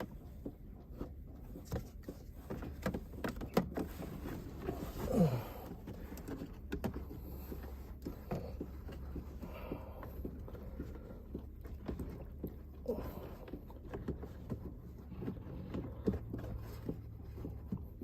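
Irregular light clicks and knocks of plastic interior trim being handled, as the cabin air filter door behind the glove compartment is shut and the glove compartment is fitted back, over a low steady hum. A short falling sound about five seconds in stands out.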